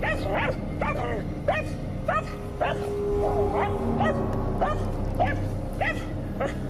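Dogs barking at a snake they are attacking, short sharp barks about two a second.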